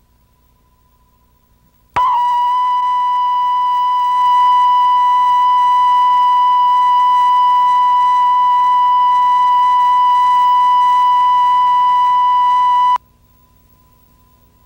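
Videotape line-up test tone, the audio reference played with colour bars for setting levels: a loud, steady tone at one unwavering pitch. It starts suddenly about two seconds in and cuts off abruptly about eleven seconds later, leaving only faint tape hum.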